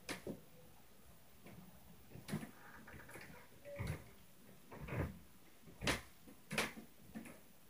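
Footfalls stomping on the floor of the apartment upstairs, heard through the ceiling as about seven separate heavy thuds at irregular spacing, the loudest about six seconds in.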